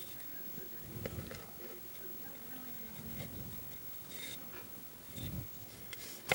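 Faint rubbing and handling sounds of bracelet strings being pulled and knotted against a clipboard, with a few light ticks and a sharp knock near the end.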